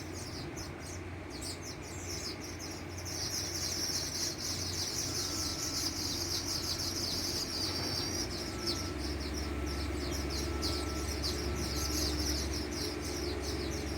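A flock of streaked weavers chattering, a dense, rapid high twittering that builds about three seconds in, over a steady low hum.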